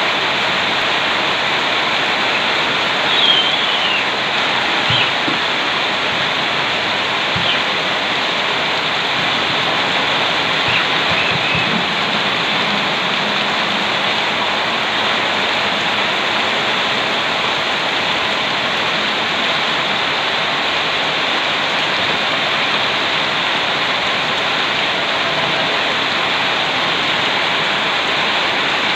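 Heavy rain with muddy runoff water rushing through a flooded yard: a steady, unbroken rush of water.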